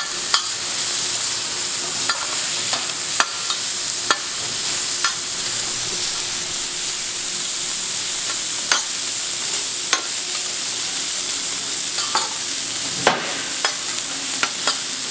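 Pork belly sizzling steadily on a large iron griddle plate, with scattered sharp clicks and scrapes of utensils against the plate as the meat is mixed and turned.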